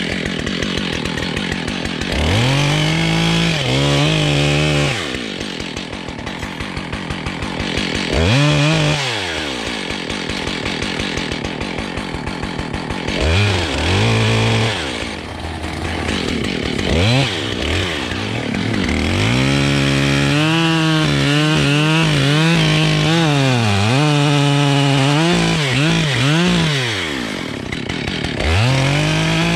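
Husqvarna 572 XPG two-stroke chainsaw, nearly new and not yet broken in, revving repeatedly from idle to full throttle and back. Past the middle it holds high revs for several seconds, its pitch sagging and recovering as if under load in the cut.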